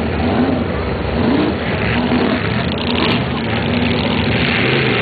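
Mud truck engine running and revving, its pitch rising and falling, with a rushing noise that swells near the end.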